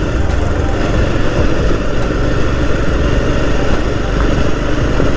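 Steady running of a moving vehicle's engine, with a dense low rumble of road and wind noise.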